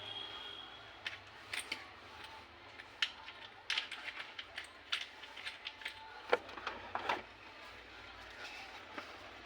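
Small hard clicks and clinks, irregular and a few to the second, of tools and parts being handled on a repair bench, over a low steady hum. The clicking thins out after about seven seconds.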